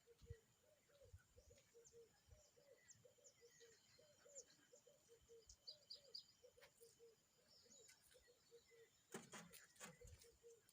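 Faint birds chirping, with a low short call repeating about three times a second, over quiet outdoor background.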